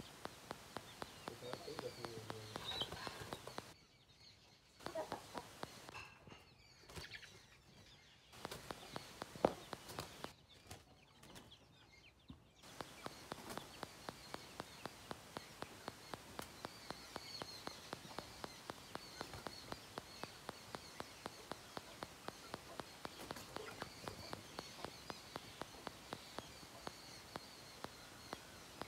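Young Aseel chickens sparring: faint scuffling and wing flaps, with chicken clucks and bird chirps, over a steady faint ticking about three times a second. There is one sharp knock about nine seconds in.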